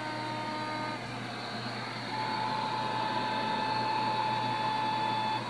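Receiver audio from an RTL-2832U software-defined radio tuned near 28.8 MHz in the 10 m band: hiss with several steady whistling tones from a comb of interference signals, which the operator thinks is intermodulation in the chip. The tones change about a second in, and a stronger steady tone comes in at about two seconds and cuts off just before the end.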